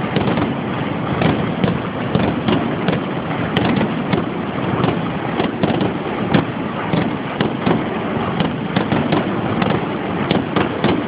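Aerial fireworks going off in a rapid barrage: many bangs a second from bursting shells, overlapping into a continuous crackling rumble.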